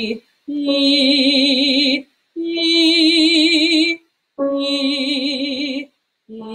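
A woman singing an onset exercise on an "ee" vowel: separate held notes with vibrato, each started cleanly and cut off with a short silence between, stepping up to a top note in the middle and back down. Each note begins as the breath begins, neither with a glottal stop nor breathy, as if a Y came before the vowel.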